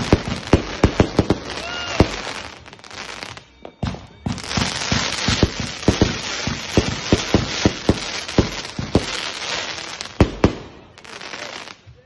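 Fireworks going off: a rapid string of sharp bangs, a brief lull about three and a half seconds in, then several seconds of dense crackling mixed with more bangs, easing off near the end.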